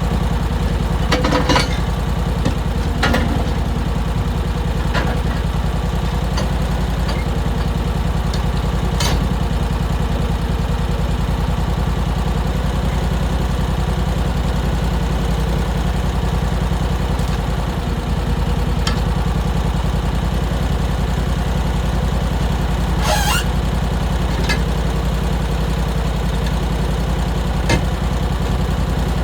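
Engine running steadily at an even speed, with a few sharp clicks and knocks scattered through it.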